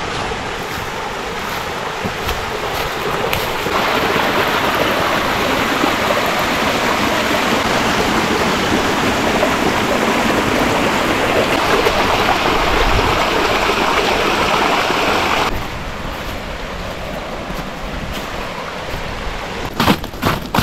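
Rushing water, a steady even rush with no pitch to it. It grows louder about four seconds in and drops back abruptly about five seconds before the end.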